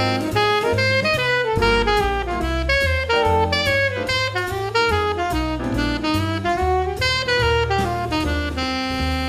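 Alto saxophone playing a fast bebop eighth-note phrase over a jazz backing of bass and drums, ending on one long held note near the end.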